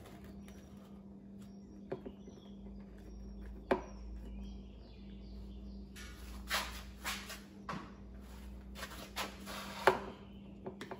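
Hand-handling noises: a few sharp clicks and some rustling as hose clamps are worked back onto the outboard's fuel filter hoses, over a faint steady hum. The loudest clicks come about a third of the way in and near the end, with a stretch of rustling in between.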